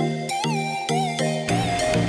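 Background music: an upbeat electronic track with a sliding synth melody. The bass drops out and comes back in about one and a half seconds in.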